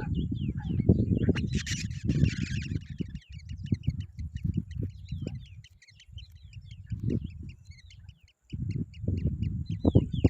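Rapid series of short, high, downward-slurred chirps, several a second, from black drongo chicks begging at the nest, with a brief harsh rasp about one and a half seconds in. A low rumble runs underneath and drops out for moments.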